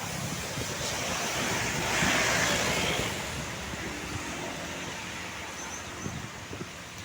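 A vehicle driving past close by: a rush of road and engine noise that swells to its loudest about two seconds in and then fades away.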